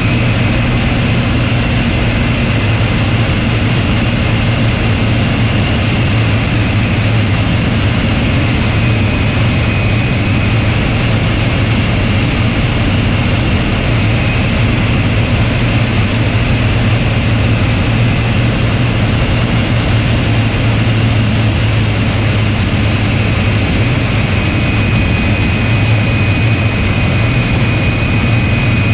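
Hawker Hurricane's Rolls-Royce Merlin V12 engine running steadily in flight, heard from inside the open-framed cockpit as a deep drone under a loud rush of air over the canopy, with a thin steady high whine.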